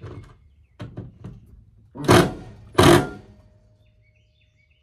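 Handheld power drill driving a screw through a metal mounting bracket into wood siding, in two short loud bursts about a second apart, after a few light knocks.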